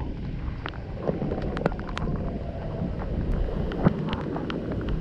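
Strong storm wind buffeting the microphone: a continuous low rumble with scattered sharp clicks and crackles.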